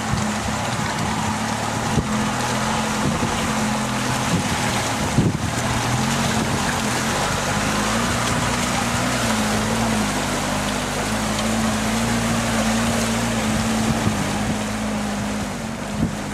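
Suzuki Samurai JX's four-cylinder engine running under load as the 4x4 crawls through mud and a shallow stream, its note wavering with the throttle and rising about six seconds in, over the splash of water around the tyres. A few sharp knocks break in.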